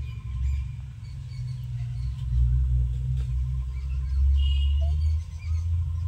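Uneven low rumble on the microphone, with a few faint bird chirps, the clearest about four seconds in.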